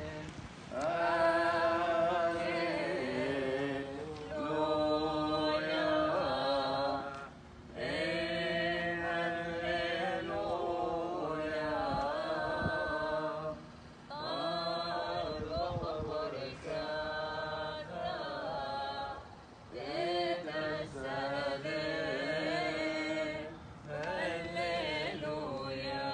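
A small group of voices chanting a Chaldean liturgical hymn unaccompanied. They sing in phrases a few seconds long, with short pauses for breath between them.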